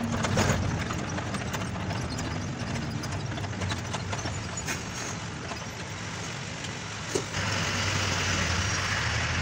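Diesel engine of a BS6 Ashok Leyland Ecomet truck running at low speed, heard from inside the cab, with a few short knocks and rattles. The engine grows louder about seven seconds in.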